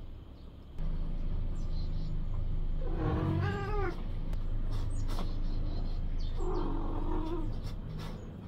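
A stray cat gives two drawn-out meows with a wavering pitch, about three seconds in and again near seven seconds. Under them a steady low hum sets in about a second in.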